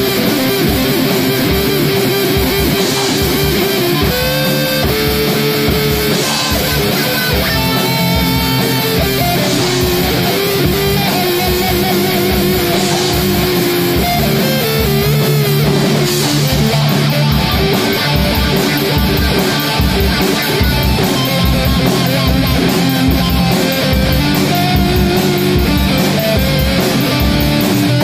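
Heavy rock music: electric guitar playing over a steady, evenly repeating low beat.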